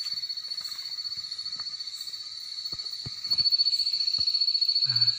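Night insects trilling: a high, steady, rapidly pulsing trill that grows louder about three seconds in. A few faint clicks and a short low voice sound near the end.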